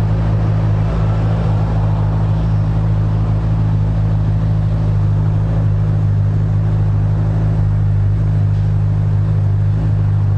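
Steady low drone of an idling engine, unchanging in pitch and level.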